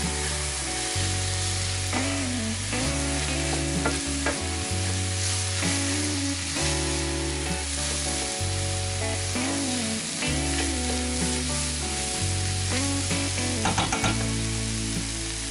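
Chopped mushrooms frying in butter and flour in a stainless steel pan, sizzling steadily while a wooden spoon stirs them, with scraping and light knocks of the spoon against the pan, a few clustered near the end. Background music plays underneath.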